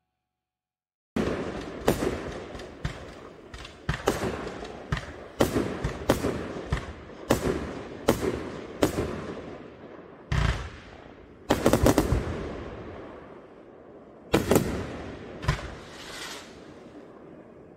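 Fireworks display: aerial shells bursting in a rapid series of sharp bangs, each trailing off in a fading crackle. The bangs start about a second in, come close together, and thin out over the last few seconds.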